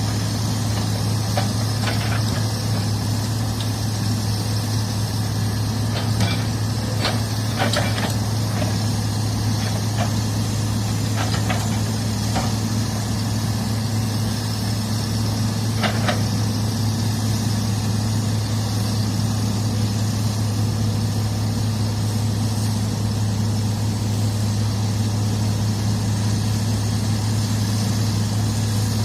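Heavy-equipment diesel engine running at a steady speed, with a few short sharp knocks or clanks over it, most of them about a third of the way through.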